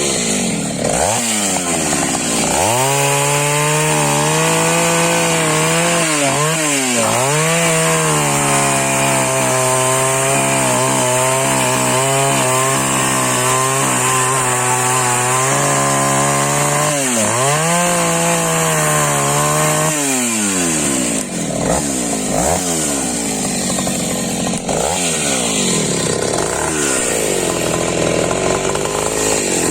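Taiga 214 two-stroke chainsaw running at high revs while cutting firewood. Its pitch dips sharply and recovers several times as the chain loads up in the wood. A long steady stretch comes in the middle, with more frequent wavering near the end.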